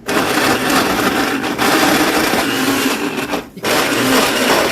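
Countertop blender running loud, blending a fruit smoothie of peaches, pineapple, grapes and kiwi. It stops briefly about three and a half seconds in, then starts again.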